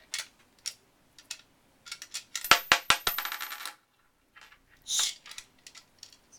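Coin-operated gumball machine being worked: a few light clicks, then a coin drops and rattles through the metal mechanism with a high metallic ring for about a second, followed by a short scrape near the end.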